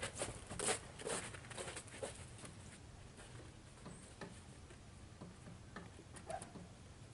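Footsteps in snow, about two a second, growing fainter over the first two seconds or so, then only a few faint scattered ticks.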